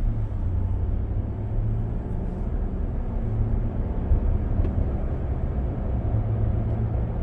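Steady low rumble of a 2025 Ram 1500 pickup being driven, heard from inside the cab: road and tyre noise with the drone of its engine underneath.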